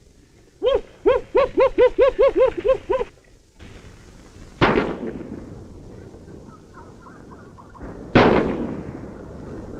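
A quick run of about nine short, high cries, each rising and falling in pitch. Then two gunshots about three and a half seconds apart, each ringing out briefly.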